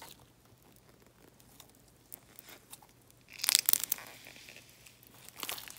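Freshly made jelly cube slime, still full of air bubbles, being squished and stretched by hand, giving wet crackling and popping. It is faint at first, with a louder burst of crackles about three and a half seconds in and more near the end.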